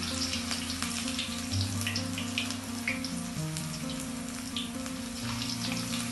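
Ginger frying in hot oil in a wok: a steady sizzle with scattered crackles and pops. Background music plays underneath.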